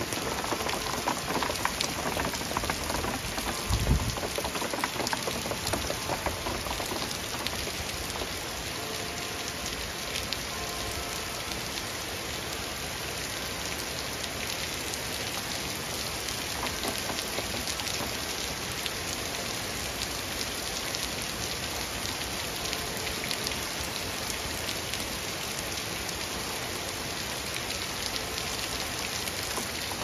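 Heavy rain pouring down on a street and pavement, a steady hiss of falling water, with one brief low thump about four seconds in.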